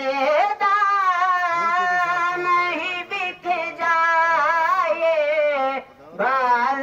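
A boy's solo voice singing an Urdu naat through a public-address horn loudspeaker, drawn out in long, wavering held notes, with a short breath just before the end.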